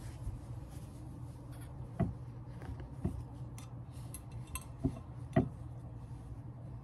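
Close handling sounds while a headband is being put on: a few light knocks and clicks, the loudest about five and a half seconds in, over a steady low hum.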